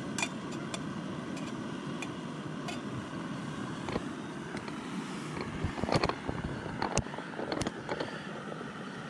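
Small camp stove burning steadily under a pot of water, a steady rushing sound with scattered sharp clicks and knocks, the loudest about six and seven and a half seconds in.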